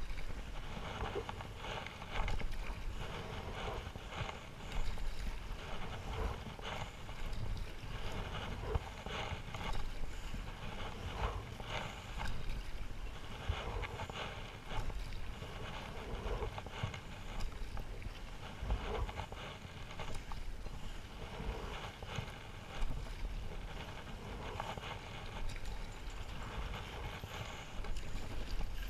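Stand-up paddle strokes through lake water, a swash and splash about every two seconds, with water slapping against the paddleboard. Wind rumbles on the microphone underneath.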